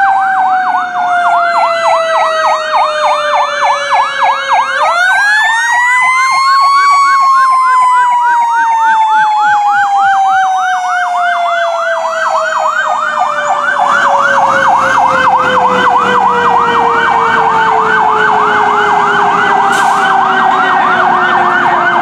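Fire truck sirens: an electronic siren yelping, rising and falling about three times a second, over a mechanical siren that winds up about five seconds in and then slowly falls in pitch as it coasts down. The truck's engine and road noise grow louder in the second half as it passes.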